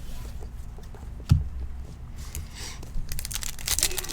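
A single thump about a second in, then a baseball card pack wrapper crinkling and tearing as it is ripped open, loudest near the end.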